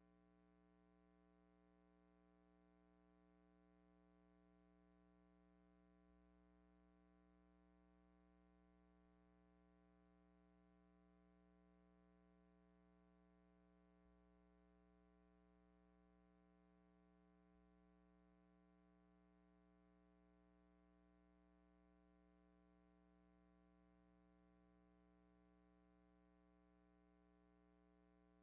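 Near silence: only a faint, steady hum with no other sound.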